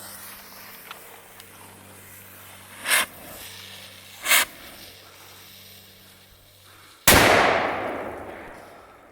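Black Sheep Milkman firecrackers going off: two brief hissing spurts about three and four seconds in, then a single loud report about seven seconds in that echoes and fades over a couple of seconds.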